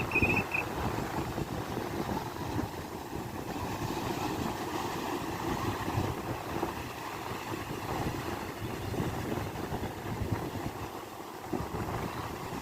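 Sea waves washing on the shore, a steady rushing noise, with wind buffeting the microphone.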